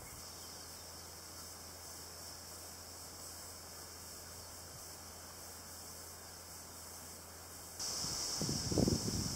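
Quiet outdoor ambience: a faint steady hiss with a low hum. About eight seconds in, the sound changes abruptly to a louder high-pitched hiss, with a few low bumps and rumbles on the microphone.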